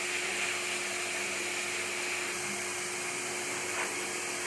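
Pet hair dryer blowing steadily, a constant motor hum under an even rush of air, used to dry a dog's coat.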